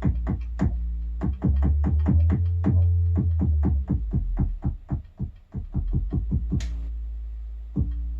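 Arturia Drumbrute Impact analog drum machine playing a fast, steady pattern of drum hits over a low sustained bass tone, with a single longer noisy hit about six and a half seconds in. The sound dies away near the end.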